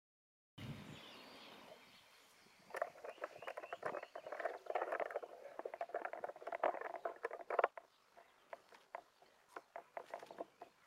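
Footsteps on a gravel path: a dense run of irregular crunching clicks for several seconds, thinning to scattered steps near the end.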